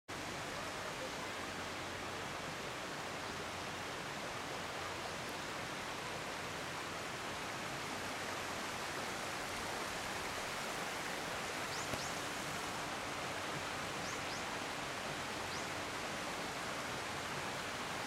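Shallow mountain stream running over rocks and riffles: a steady, even rush of water.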